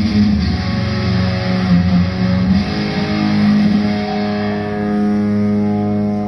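Amplified guitar played at a band sound check: busy playing for about four seconds, then a chord left ringing to the end.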